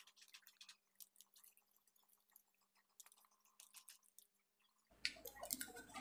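Faint, sparse crackling and ticking of adhesive handlebar grip tape being handled and wrapped around a bar, over near silence. About five seconds in, louder room noise starts abruptly with a few irregular sounds.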